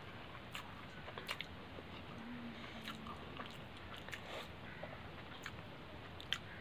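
Faint chewing and mouth sounds of a person eating rice and curry by hand, with scattered soft clicks as fingers mix the rice against a steel plate.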